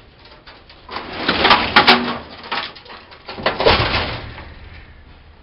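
A heavy metal vending machine being gripped and shoved: two loud bouts of scraping and banging, one about a second in and another around three and a half seconds.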